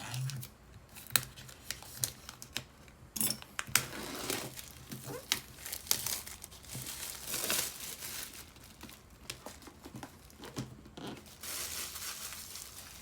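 Packaging being handled and opened: irregular crinkling and tearing, broken by sharp clicks and small knocks.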